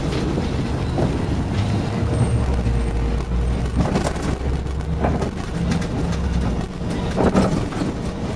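Cabin noise of a moving city bus: a steady low engine and road rumble with a faint hum, broken by a few short knocks and rattles.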